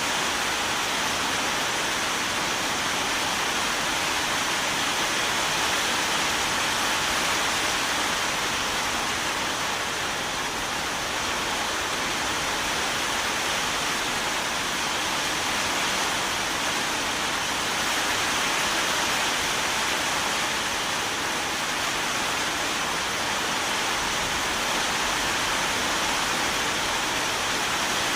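Steady rain, an even hiss with no single drops, thunder or other sounds standing out.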